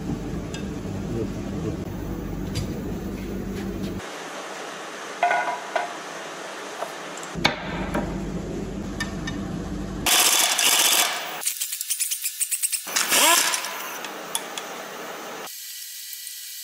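Metal engine parts and hand tools clinking and knocking as a bare engine block is assembled, with a couple of seconds of rapid rattling pulses from a power tool about two-thirds of the way through.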